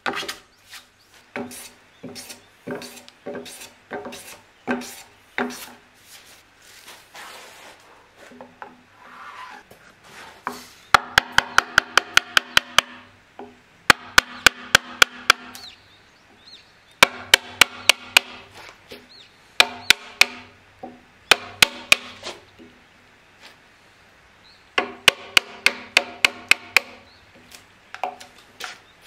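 A hand plane taking short strokes across Japanese pine, about two a second. It gives way to a hammer tapping a chisel in quick bursts of sharp, ringing strikes, about five or six a second, as the joint is pared.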